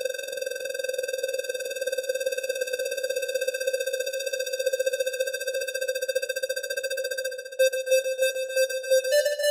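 Novation MiniNova synthesizer playing its ShapeShift DF preset: one long held note with a fast, fluttering shimmer, which about seven seconds in breaks into a rhythmic pulsing pattern that steps up in pitch near the end.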